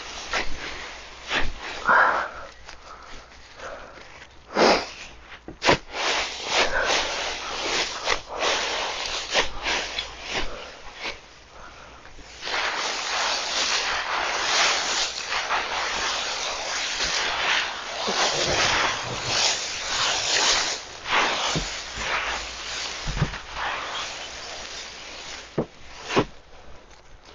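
Dry fallen leaves in a wooden compost bin rustling and crunching as a garden fork turns and mixes the pile. At first it comes as separate scrapes and rustles; from about twelve seconds in it becomes a dense, continuous rustle for some eight seconds, then returns to separate strokes.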